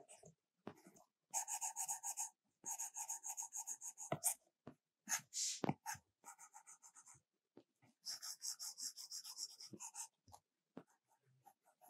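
Stylus scratching across an iPad Pro screen in quick back-and-forth drawing strokes, in several runs of rapid strokes separated by short pauses.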